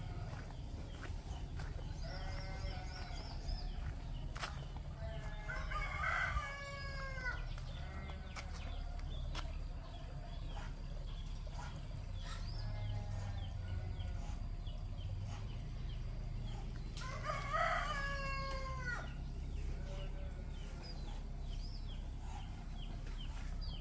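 Rooster crowing twice, about eleven seconds apart, each crow about two seconds long with a falling end. Fainter calls from other fowl come in between, over a low steady rumble.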